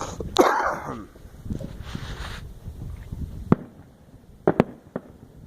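Fireworks going off: a loud, noisy burst about half a second in, then sharp reports, one at about three and a half seconds and a quick pair about a second later.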